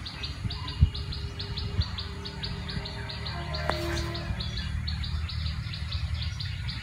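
Insect chirping in a steady, even rhythm, about four high-pitched pulses a second, over a low rumble.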